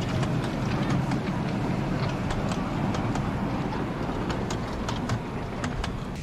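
Miniature railway riding cars rolling past on 7¼-inch gauge track: a steady rumble with many sharp wheel clicks on the rails, easing off near the end as the last car goes by.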